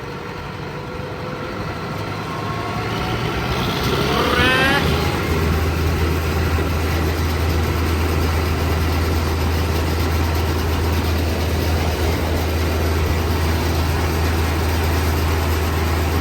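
Massey Ferguson 5900 tractor engine running on the road. About four seconds in it speeds up with a rising whine, then settles into a steady low drone.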